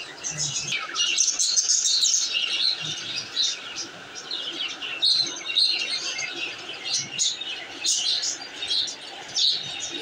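A group of budgerigars chattering: many short high chirps overlapping one another almost without a break.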